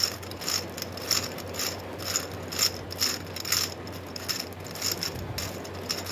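Plastic gear cube being twisted by hand: its interlocking gears click and rattle with each turn, in a quick, uneven run of about two or three turns a second.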